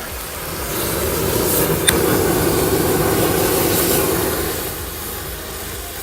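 A mass of fireworks burning at once with a loud rushing hiss that swells, holds and dies down, with a single sharp pop about two seconds in.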